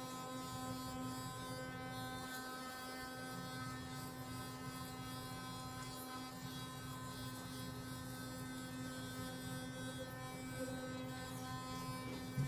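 Children's electric toothbrush running with a steady hum while brushing a child's teeth, with a brief knock near the end.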